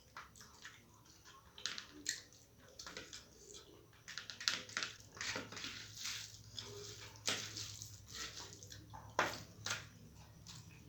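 Wet, irregular smacking and chewing of a mouthful of rice with red-lentil dal and mashed potato, many short moist clicks in no steady rhythm.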